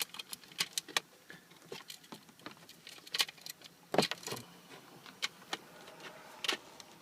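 Hard plastic dashboard trim clicking, tapping and rattling as it is pried at and worked loose by hand, a string of irregular sharp clicks with the loudest knock a little past the middle.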